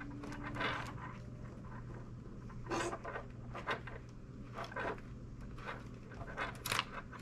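Scattered light clicks and rustles as plastic wiring connectors and a Posi-Tap are handled, over a low steady hum.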